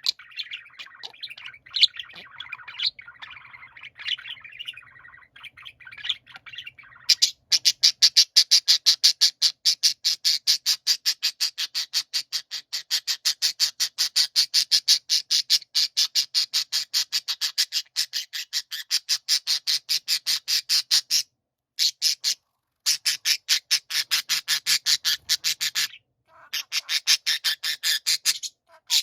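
Budgerigars chattering and warbling in varied chirps. About seven seconds in, this changes to a fast, even, grating 'giji-giji' call, about five pulses a second, which goes on with two short breaks.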